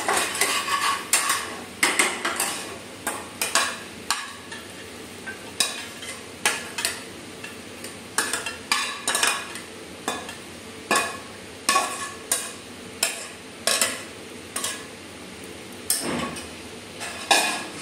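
Metal spatula scraping and knocking against a steel kadhai as cooked potato-and-vegetable stuffing is scooped out into a steel plate. Irregular clinks and scrapes come about once or twice a second.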